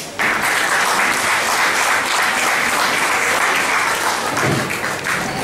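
Audience applauding: a dense patter of many hands clapping that starts suddenly and thins out near the end.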